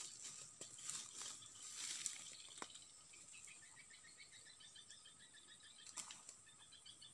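Faint outdoor ambience: soft rustling in the first couple of seconds, then a run of quick, high chirps from about three seconds in.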